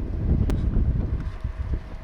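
Gusty, rumbling wind noise buffeting the microphone, with one sharp click about half a second in.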